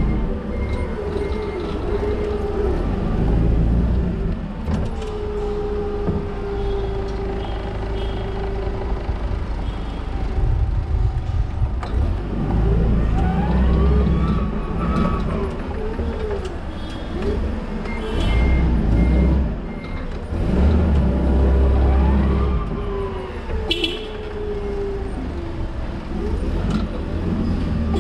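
Toyota counterbalance forklift driving, a whine that rises and falls with its speed over a low rumble, with short beeps from the truck at times.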